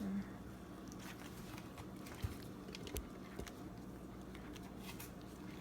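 Faint wet squishing and soft scattered clicks as a gloved hand squeezes and kneads a wet khanom krok batter mixture in a bowl, over a low steady hum.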